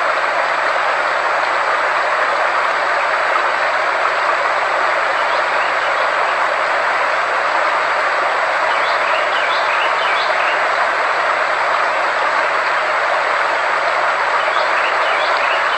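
Frequency-therapy sound track: a steady, even rushing noise with faint constant high-pitched tones and a low hum held underneath, with a few faint short chirps about nine seconds in and near the end.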